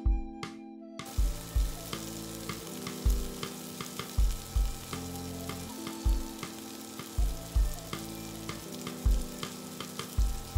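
Coated shrimp frying in oil in a frying pan, a steady sizzle that comes in suddenly about a second in. Background music with a regular beat plays underneath.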